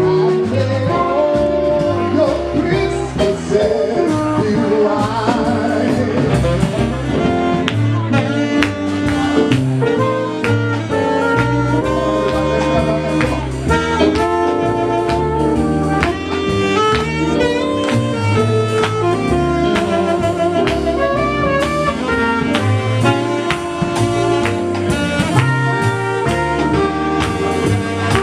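A small live jazz band playing: saxophone and trumpet over electric keyboard and drum kit, with a steady beat.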